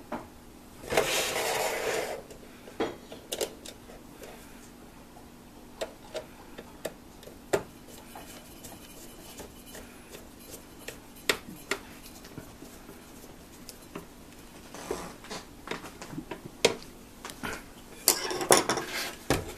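Sparse clicks and knocks of a screwdriver and the plastic housing of a Singer Graflex Study Mate II filmstrip viewer being handled on a countertop as its case screws are driven in. There are longer rattling scrapes about a second in and again near the end, as the housing is moved around.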